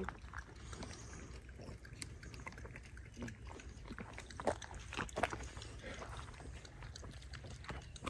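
French bulldog licking water from the neck of a bottle: a scatter of short, soft wet sounds.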